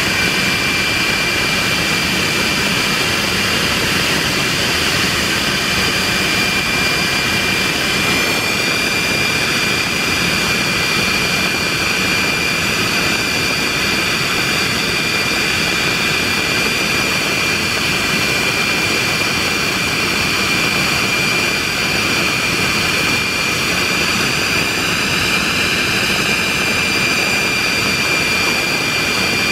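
De Havilland Venom's single de Havilland Ghost turbojet running steadily on a ground run, with a constant high whine over the jet noise. The higher tones waver about eight seconds in and again near the end.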